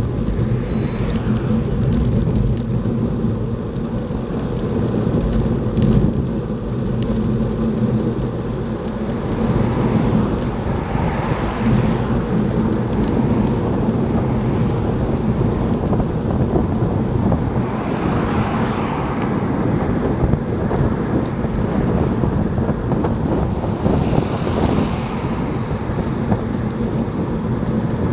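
Steady wind rumble on the microphone of a moving road bicycle, with motor traffic passing three times, each a rising and falling swell of tyre and engine noise, the last near the end. A few light clicks are heard in the first several seconds.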